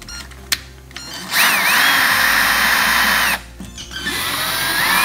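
Cordless drill driving screws in two runs: a burst of about two seconds, a short pause, then a second run whose whine rises in pitch and holds steady.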